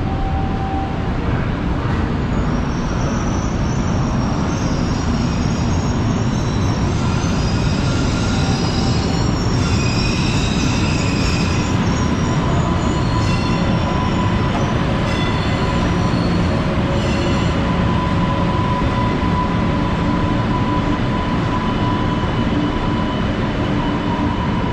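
MBTA Green Line Type 7 and Type 8 light-rail cars moving through an underground station. The cars give a steady, loud rumble, with high wheel squeal from about three seconds in until past the middle, and then a steady hum.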